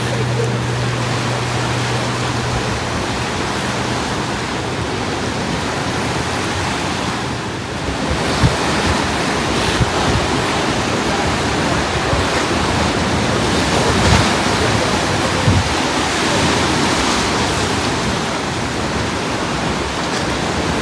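Ocean surf breaking and washing up a sandy beach below rocky cliffs, a steady rushing wash. From about eight seconds in, wind gusts buffet the microphone with irregular low rumbles and a few bumps.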